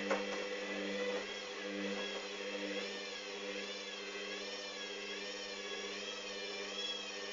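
Hoover Dynamic washing machine's motor whining through a spin with an unbalanced load, with a sharp knock at the start. From about a third of the way in, the pitch wavers up and down about once a second.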